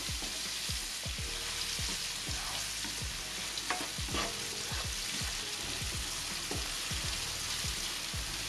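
Sliced onion and green and red chillies sizzling in hot oil in a nonstick wok, being sautéed until wilted. A spatula stirs and scrapes against the pan in short, repeated strokes, about two or three a second.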